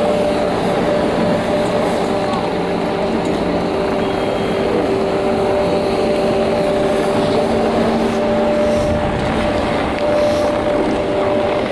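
Colorado SuperChair detachable chairlift terminal machinery running: a steady mechanical drone with several held tones over a continuous rushing noise.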